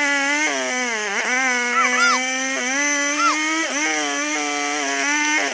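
Old two-stroke chainsaw running at high revs, its pitch sagging briefly twice, about a second in and again near four seconds, as it is cutting albasia wood.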